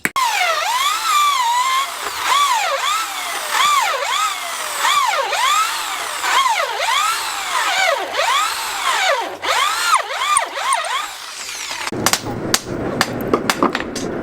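Electric drill boring a hole, its whine rising and falling over and over as the bit bites and frees. About 12 seconds in the drilling stops and a quick series of sharp knocks begins.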